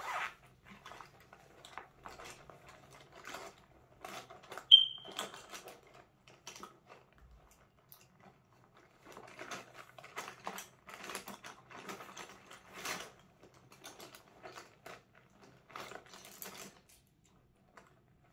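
Pens, markers and crayons clicking and rattling against each other as a hand rummages through a fabric pencil pouch, with rustling of the pouch in irregular clusters. About five seconds in, a short, sharp high squeak is the loudest sound.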